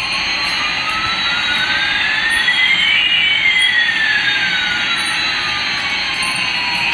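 Jet-engine sound effect: a steady rushing whoosh with two whining tones, one rising and one falling, that cross about halfway through.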